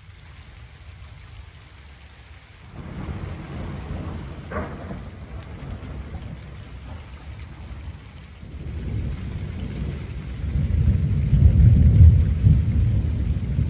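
Rolling thunder: a low rumble builds about three seconds in with a brief crackle, eases off, then a second, louder rumble swells and dies away near the end.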